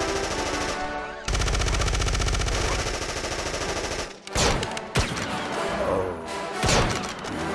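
Action-movie gunfire sound effects. About a second in, a rapid machine-gun burst runs for nearly three seconds, then a few single shots follow, over a music score.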